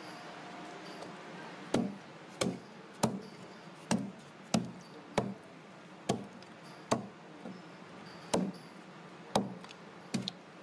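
Broad-bladed knife chopping through a monkfish onto a wooden chopping block: about a dozen sharp knocks, roughly one every two-thirds of a second, starting about two seconds in.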